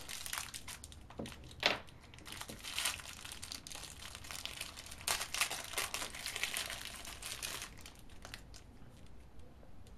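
Clear plastic packaging crinkling and crackling irregularly as it is handled and pulled open, with one sharp snap about one and a half seconds in. It dies down near the end.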